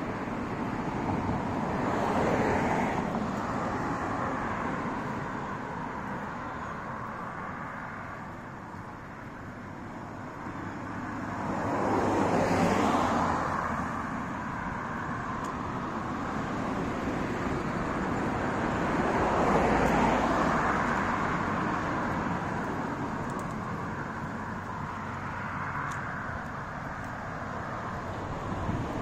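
Road traffic: cars passing one after another, their tyre and engine noise swelling up and fading away. The loudest passes come near the start, in the middle, and about two-thirds of the way through.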